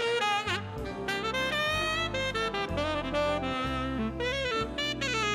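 Big-band jazz recording: a tenor saxophone plays a solo line that slides and bends between notes, over bass and rhythm section.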